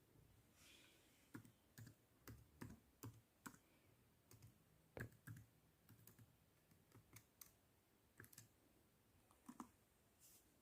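Faint, irregular key presses on a mid-2012 MacBook Pro's laptop keyboard as a login password is typed, about fifteen light clicks with uneven gaps.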